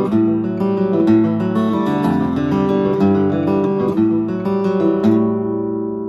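Acoustic guitar played solo, a run of picked notes and chords that ends about five seconds in on a chord left to ring and fade.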